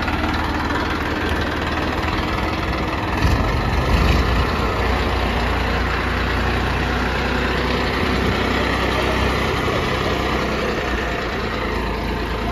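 Massey Ferguson 1035 DI tractor's three-cylinder diesel engine running as the tractor pulls away slowly. It revs up briefly about three to four seconds in, then settles back to a steady run.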